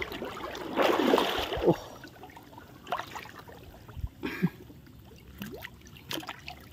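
Water splashing and trickling, loudest about a second in, then fading to faint drips and small splashes.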